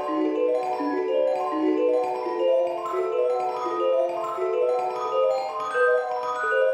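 Background music: a light mallet-percussion melody of quick running notes, with no bass or drums.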